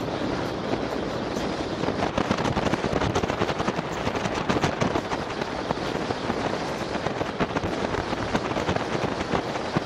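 Polaris Slingshot under way: a steady, dense crackling rush of wind and road noise on an open-air action camera's microphone.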